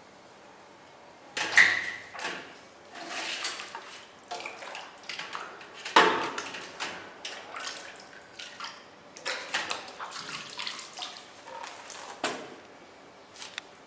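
Stainless steel popsicle mold clanking against a large stainless steel basin and sloshing through hot water, dipped to loosen the frozen popsicles for demolding. Loud metal knocks about a second and a half in, around six seconds in, and again near the end, with splashing between them.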